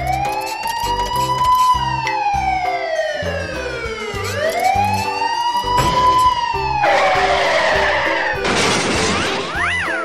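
Emergency-vehicle siren in a slow wail, rising and falling about every four seconds, over background cartoon music with a steady beat. In the last three seconds a loud hissing rush of noise comes in.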